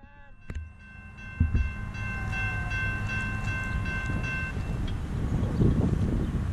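Distant locomotive horn of CN 2437, a GE C40-8M leading the train, sounding one long multi-note chord for about three and a half seconds. It cuts off about four and a half seconds in, while a low rumble builds underneath from a second in onward.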